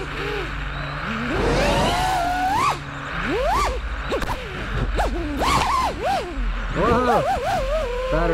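FPV quadcopter's brushless motors and propellers whining, the pitch swooping up and down quickly as the throttle is punched and chopped through the flight.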